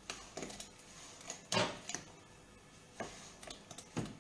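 A kitchen tool tapping and scraping on a wooden board as raw gnocchi are worked off it into a pot of boiling water: a string of sharp taps and knocks, the loudest about a second and a half in.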